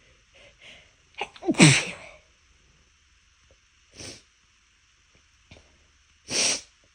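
A person sneezing despite trying to hold the sneezes back. A couple of quick breaths in come first, then a loud sneeze about a second and a half in, its voiced part falling in pitch. A shorter breathy burst follows around four seconds, and a second loud, breathy sneeze comes near the end.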